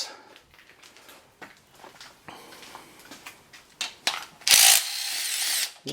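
Light clicks and knocks of tools being handled. About four and a half seconds in, a power tool runs for about a second and a half with a high, hissing whir, spinning out an idler pulley bolt on an LS 6.0 V8.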